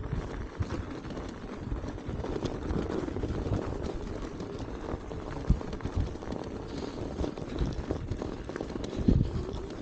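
Wind buffeting the microphone as a rough, steady rumble, with a couple of sharper thumps about halfway and near the end.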